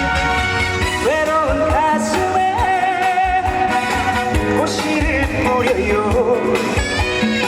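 Live trot music: a band accompaniment with a steady beat and a bending lead melody line over it.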